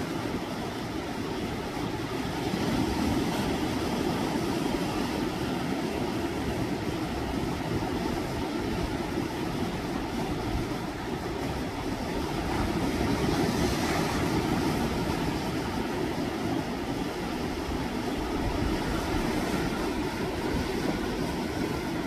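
Sea waves surging against shoreline rocks: a continuous, heavy wash of surf that swells louder about three seconds in and again around thirteen seconds in.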